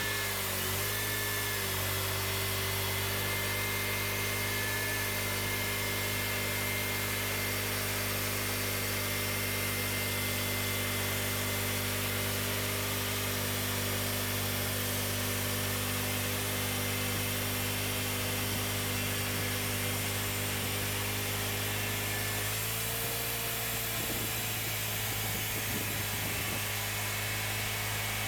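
Cooks 3238 hydraulic band sawmill running steadily, its engine holding a constant note with a hiss over it as the band blade saws through the cherry log. The engine note dips briefly at the start and rises slightly about twenty-two seconds in.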